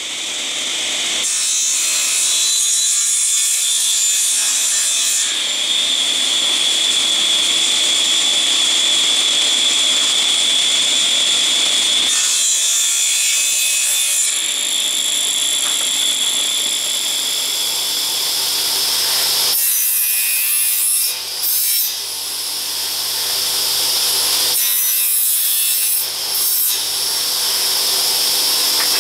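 A power tool cutting wood, running steadily with a high whine, with brief dips twice in the last third.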